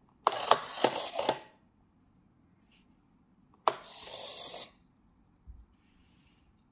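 A 3D-printed useless box's small hobby servos whir in short runs, with sharp plastic clicks as the toggle switch is flipped and the lid and arm move. A first run with several clicks comes just after the start. A second run begins with a sharp click a few seconds later, as the lid swings open, and a soft thump follows.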